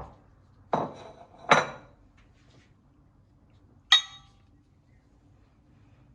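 Kitchenware being handled: two knocks about a second in, then a sharp ringing clink of a dish or utensil near four seconds.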